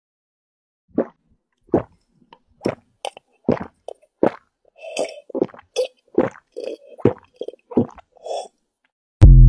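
Close-up mouth sounds of sipping, slurping and chewing: a run of irregular wet smacks and sips, about one to two a second, starting about a second in. Right at the end a loud, short pitched sound effect cuts in.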